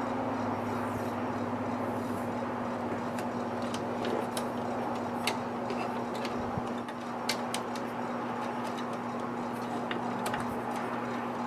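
Electrical tape being handled and wrapped around wire connections: scattered sharp clicks and small crackles over a steady electrical hum.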